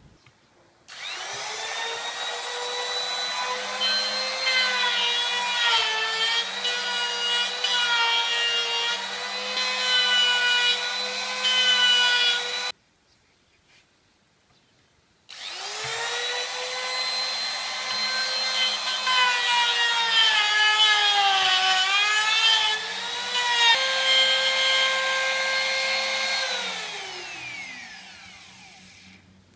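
Compact electric trim router spinning up to a high whine and cutting into teak, its pitch dipping and wavering under load. It runs twice: the first run stops abruptly, and the second ends with the motor winding down in pitch after switch-off.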